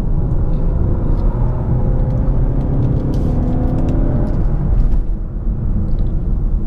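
2017 Mazda 6's four-cylinder engine and tyre rumble heard from inside the cabin while driving, the engine note rising for a couple of seconds under acceleration and then dropping away about five seconds in.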